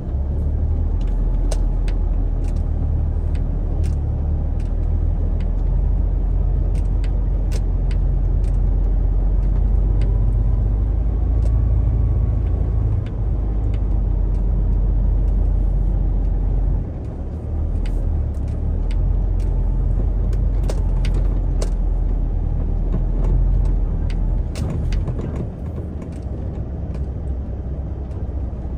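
Heavy truck's diesel engine running with a steady low rumble while manoeuvring, with scattered sharp clicks and knocks over it.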